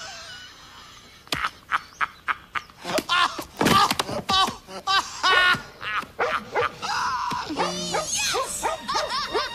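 Cartoon soundtrack: music mixed with characters' cries and wordless vocal noises, with quick sound-effect hits.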